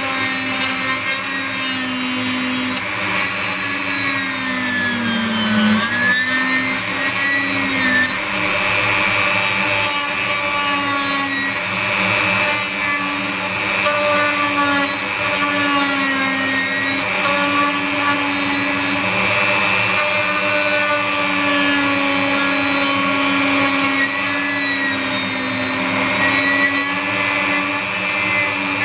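Handheld rotary tool grinding burnt fiberglass out of a guitar amplifier's circuit board. Its motor whine wavers and sags in pitch as the bit bites, with a deeper dip and recovery about five seconds in.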